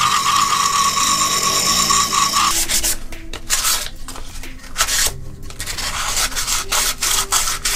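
Dremel rotary tool with an 80-grit sanding attachment whining steadily as it grinds a 3D-printed plastic cap, cutting off about two and a half seconds in. After that comes sandpaper rubbed back and forth by hand over the plastic in irregular rasping strokes.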